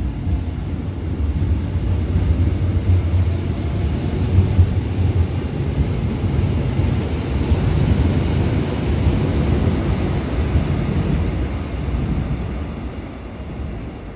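Seoul Subway Line 3 GEC chopper-control electric train running past the platform, a steady low rumble of wheels and traction motors that fades over the last couple of seconds as it leaves.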